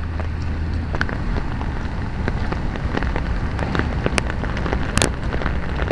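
Heavy rain falling, an even hiss of drops with many small close drop hits and a low rumble underneath. Two sharper hits stand out about four and five seconds in.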